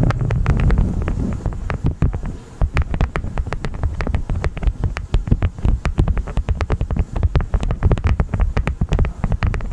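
Close-miked honeycomb wax crunching and crackling: a dense run of irregular sharp clicks, with a low rumble during the first two seconds.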